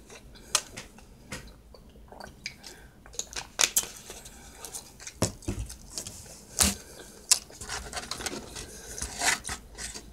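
Close-up eating sounds: irregular sharp clicks and crunches from hard chewing, with a plastic fork scraping and tapping a takeout container near the end.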